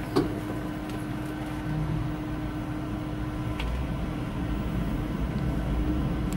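Steady mechanical hum of a lift car travelling, with a faint steady tone that cuts off about halfway through and a sharp click just after the start.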